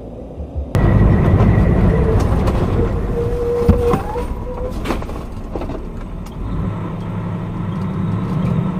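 A road vehicle driving, with steady engine rumble and road noise that jumps suddenly louder about a second in. A few sharp clicks or knocks come around the middle.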